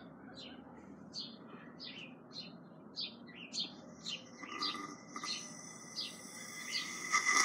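A bird chirping over and over, about two short chirps a second. From about halfway in, breath is blown through a thin straw, a hiss with a faint whistling tone that is loudest near the end.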